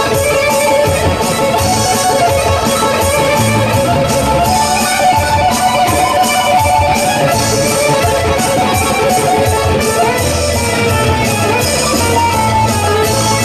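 Live rock music: an electric guitar playing a held, singing lead line over a steady beat.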